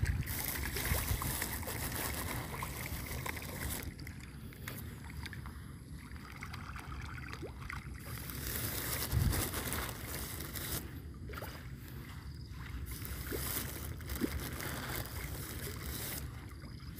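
Wind rumbling on the microphone, with a broad hiss that swells and fades several times.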